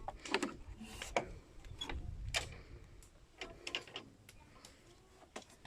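Irregular clicks and rustling over a low rumble; the rumble fades about halfway through.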